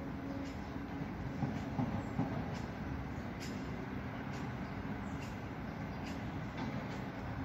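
Steady low rumble of outdoor background noise, with faint sharp ticks about once a second.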